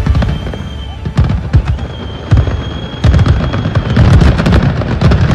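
Fireworks bursting: a string of booms and crackles, with two high whistles, the second held for about two seconds. The bangs come thicker from about three seconds in.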